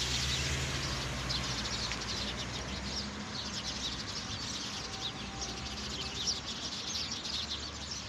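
Many small birds chirping in the tree canopy, a dense stream of short, high chirps. A low steady hum sits under it for the first few seconds.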